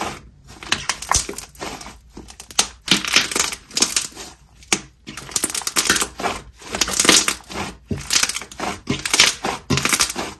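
Inflated jelly slime squeezed between the hands, giving off crisp bubble pops in dense crackling bursts, one per squeeze, with short pauses between.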